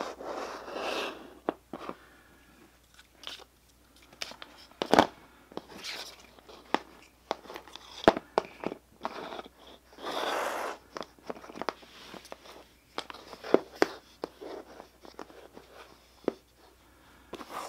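Handling noise from wires, plastic connectors and a small electric motor with its speed control being moved about on a tabletop: scattered clicks, taps and rustles, with sharper knocks about five and eight seconds in.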